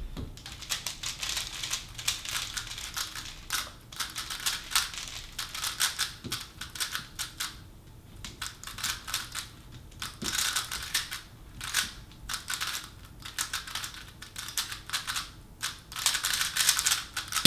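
A plastic speed cube being turned quickly during a speedsolve: rapid runs of clicking and clacking layer turns, broken by brief pauses.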